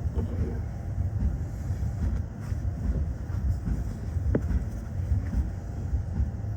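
Tokyo Metro 15000 series train running at speed, heard from inside the front car: a steady low rumble of wheels on track, with one sharp click about four seconds in.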